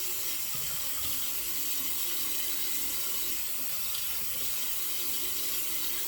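Water running steadily from a bathroom tap into a sink, the usual rinse water during a wet shave.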